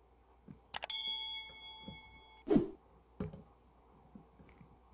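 A light metallic clink that rings on for about a second and a half, then a dull knock and a small click: metal parts handled while the set screws on a Tram 1174 antenna's base are tightened.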